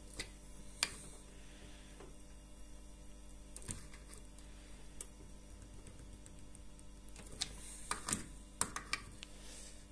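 Pliers clicking and scraping on the small retaining nut of a range-hood blower fan wheel as it is tightened onto the motor shaft: a few scattered sharp clicks, with several close together about eight seconds in.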